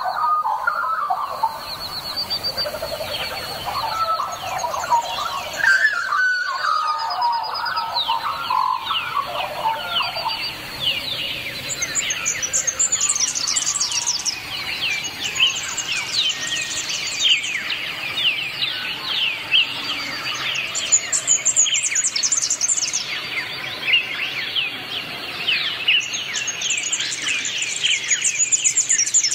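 A chorus of birds calling. Low warbling calls fill roughly the first ten seconds, then a dense stream of quick, high, falling chirps carries on to the end.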